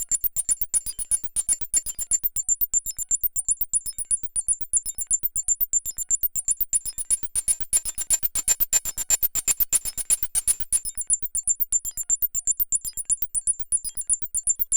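Dave Smith Evolver synthesizer playing a single sequenced patch: a fast, even stream of short clicky pulses, about eight a second, with high bleeping tones above them. The pulses get brighter and noisier for a few seconds about halfway through, then thin out again.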